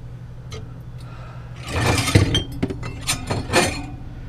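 Glass bottles and jars clinking and clattering against each other as they are shifted around in a crowded fridge, in two short spells about a second apart.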